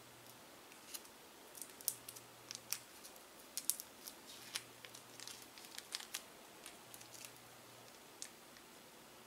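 A small clear plastic wrapper crinkling in the fingers as it is handled and peeled: a quick run of soft, sharp crackles that thins out near the end.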